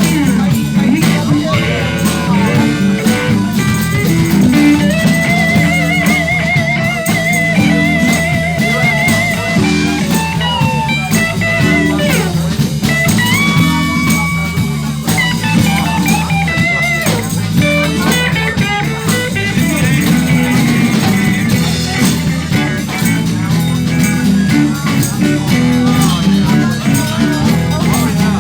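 Live blues band playing an instrumental passage: a lead guitar holds long notes with a steady vibrato over bass and drums.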